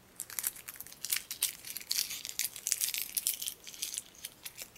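A Hi-Chew candy wrapper being unwrapped: a dense run of sharp crinkling crackles that thins out near the end.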